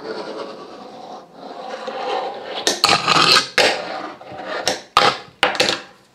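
Fingerboard wheels rolling and scraping across a wooden tabletop, then a run of sharp clacks, about seven, as the deck is popped and lands on the wood.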